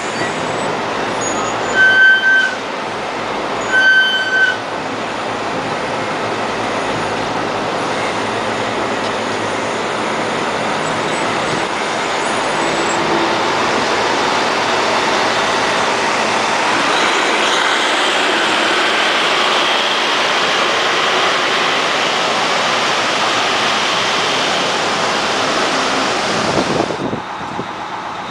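A coach bus's diesel engine running close by, growing louder as the bus pulls away, with two short high beeps about two and four seconds in.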